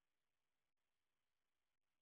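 Near silence: a faint steady hiss.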